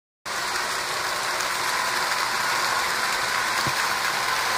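HO scale model train running on its track: a steady whirring of the small motor and wheels on the rails, with a faint steady whine, starting abruptly just after the beginning.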